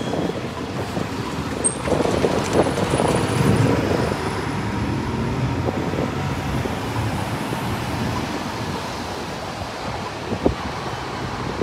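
Street traffic noise led by a city bus engine running close by, louder for a couple of seconds near the start. A short knock comes about ten seconds in.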